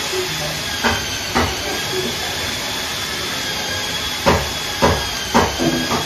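A steady hiss with a faint high whine behind it, broken by five short sharp knocks: two about a second in, then three about half a second apart after about four seconds.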